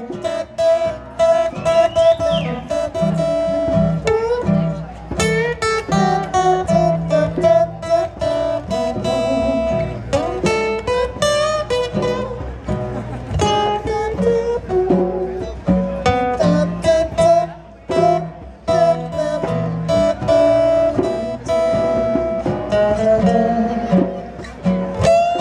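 Live acoustic band music: a violin plays a wavering, held melody over strummed acoustic guitars.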